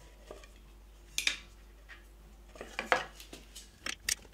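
A few sharp metallic clinks of a wrench and screwdriver on the bandsaw motor's mounting bolts: one about a second in, a couple around three seconds in, and one near the end. The motor mount is being worked loose so the slack drive belt can be retensioned.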